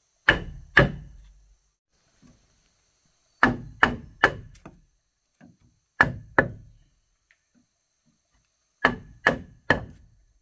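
Hard blows on wood: ten sharp strikes in four groups of two or three, about half a second apart within each group, each with a short ring.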